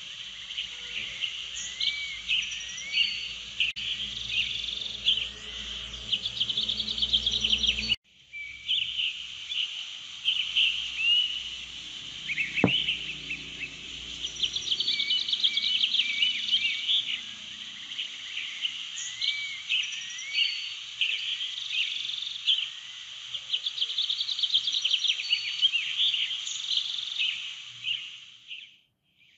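Many birds chirping and singing together, with insect trilling underneath. The sound cuts out and comes straight back about eight seconds in, a single sharp click falls a little after that, and it fades away near the end.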